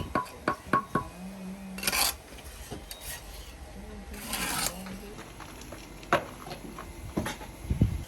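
Bricklaying hand tools working mortar: a steel trowel tapping, scraping and clinking. There is a run of quick light taps in the first second, two scrapes, and a few sharp clicks near the end.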